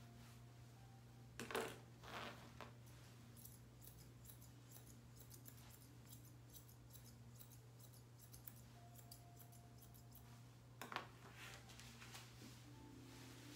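Grooming scissors snipping a poodle puppy's coat: faint, quick snips, with two louder clusters of cuts about one and a half seconds in and about eleven seconds in, over a steady low hum.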